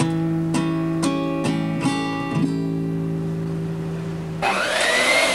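Acoustic guitar strumming about six chords, the last one left to ring. About four and a half seconds in, the guitar cuts off and an electric hand mixer starts running, a steady whir with a wavering whine.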